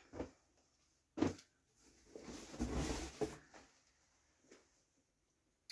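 A pair of denim jeans being tossed down and handled: a soft thump about a second in, then about a second of cloth rustling.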